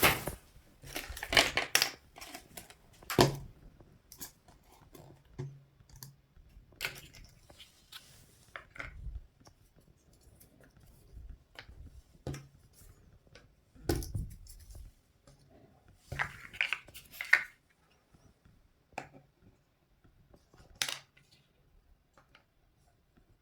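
Toy packaging being handled and opened by hand: scattered short clicks and brief rustles with quiet pauses between them.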